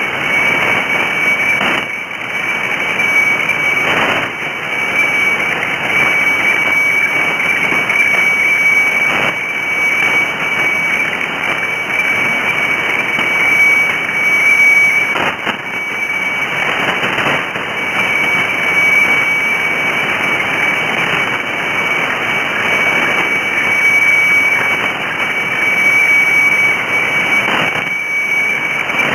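Shortwave radiofax (weather fax) signal heard through a receiver's audio: a steady high tone over a bed of hiss and crackling static, the tone dropping out briefly about halfway through.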